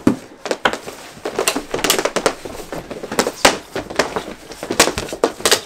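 Mini hockey sticks clacking against each other and against a small puck, the synthetic floor and the boards in a fast back-and-forth rally: many short, sharp, irregular clacks, several a second.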